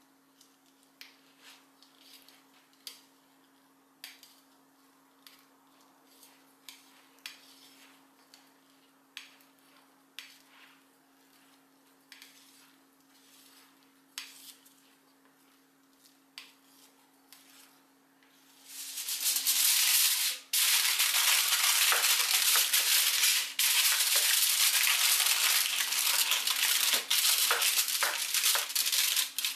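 Faint taps and scrapes of a spatula smoothing soft fish paste in a stainless-steel bowl. About two-thirds of the way through, these give way to loud, continuous crinkling of plastic cling film being stretched and pressed over the bowl.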